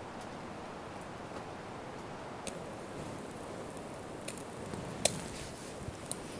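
Wood campfire crackling, with scattered sharp pops over a steady hiss; the loudest pop comes about five seconds in.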